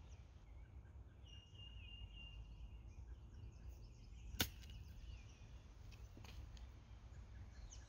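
A single sharp click of an iron striking a golf ball on a short chip shot, about four and a half seconds in, over quiet outdoor ambience.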